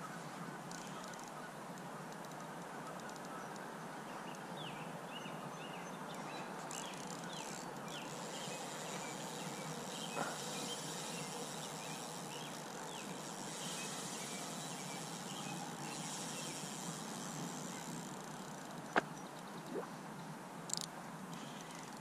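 Faint steady outdoor hiss with scattered short bird calls, and a few sharp clicks near the end.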